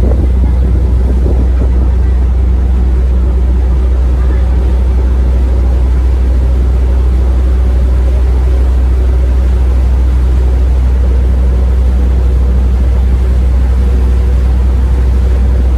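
Sightseeing tour boat's engine running at a steady cruise: a loud, unchanging low drone.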